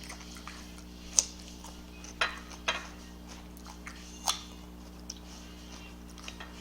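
Close-up eating sounds: a person chewing, with a handful of short wet mouth clicks and smacks, the sharpest about a second in, over a faint steady hum.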